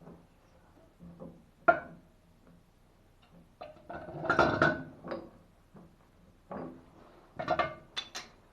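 Metal tools and plumbing fittings clinking and knocking: a sharp click a little under two seconds in, a louder run of ringing clinks about four seconds in, and a few quick clicks near the end.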